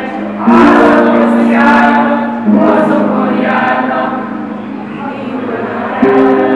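A choir of many voices singing together in long held notes, each sustained about two seconds, with a new phrase starting near the end.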